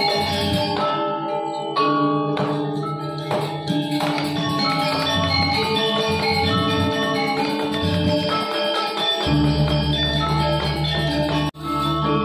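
Balinese gamelan playing: metal mallet percussion ringing in busy, layered patterns, with a deep low tone joining about nine seconds in. The sound drops out for an instant near the end.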